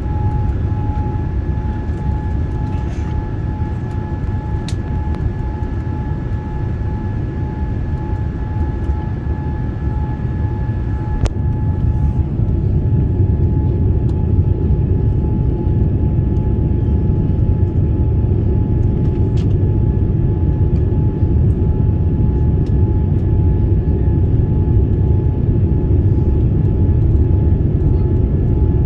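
Cabin noise inside a Boeing 787-9 airliner: a steady low rumble of engines and airflow, with a faint steady whine that fades about twelve seconds in while the rumble grows a little louder.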